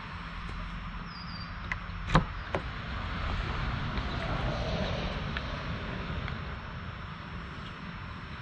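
Steady outdoor background noise like distant traffic, swelling a little in the middle, with two sharp metallic clicks about two seconds in as a hand shaping tool works the edge of a sheet-metal panel.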